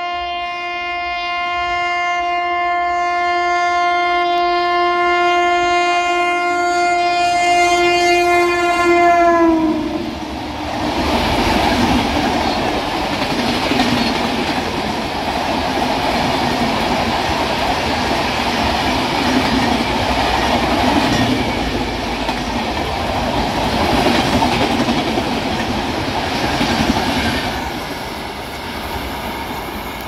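Indian Railways express train passing at high speed: the electric locomotive's horn is held for about nine seconds and drops in pitch as the locomotive goes by, then the coaches rush past with clickety-clack over the rail joints, fading near the end.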